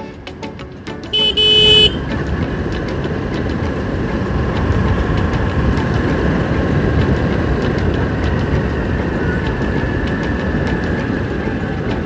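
A horn beeps once, briefly, about a second in. Then comes steady motorcycle riding noise: the engine running under wind rushing past the microphone.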